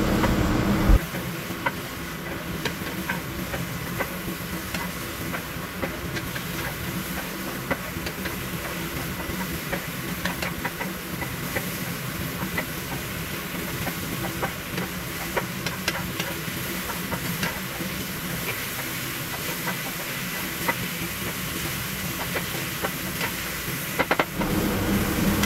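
Sliced mushrooms sizzling in a frying pan while a wooden spatula stirs them, scraping and tapping the pan many times, with a louder knock about a second in.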